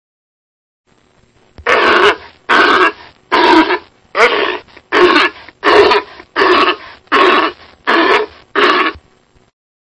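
Walrus giving ten short calls in an even rhythm, about four every three seconds, starting about a second and a half in.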